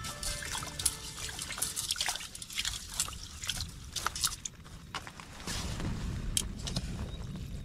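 Water sloshing, trickling and dripping in a vessel as food is washed by hand, with many small irregular splashes and clicks.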